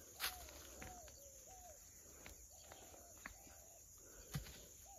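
Birds calling faintly, short arched calls repeated every half second or so, with a few soft ticks, the loudest just after the start and again near the end.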